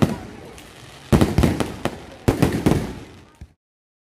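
Aerial fireworks exploding in quick volleys of sharp bangs, about a second apart, with crackling between them. The sound cuts off suddenly about three and a half seconds in.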